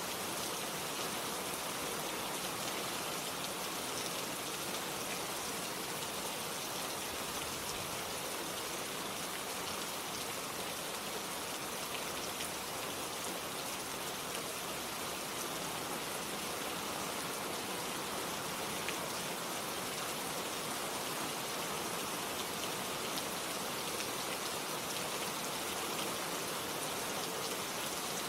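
Steady rain falling, a dense even hiss of drops with fine patter on a surface.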